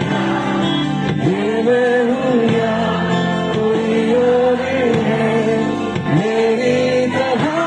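Live band music: a male singer holding long, bending sung notes over strummed acoustic guitar and band accompaniment.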